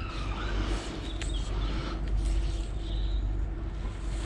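Steady low rumble of distant road traffic, with a faint steady hum and a few light clicks.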